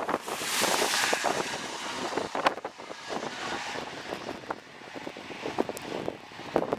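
A vehicle passing by: a rushing sound that swells about half a second in and fades slowly over several seconds. Wind buffeting the microphone adds short knocks throughout.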